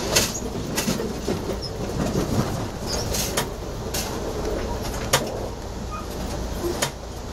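Ride noise inside a moving passenger train: a steady rumble with about half a dozen sharp clicks and knocks at uneven intervals.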